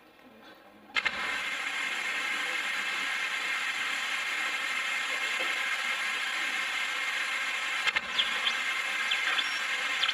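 A steady hiss of noise played back over the stage sound system. It comes on suddenly about a second in and holds even, breaks off briefly near the end, then resumes with a few faint clicks.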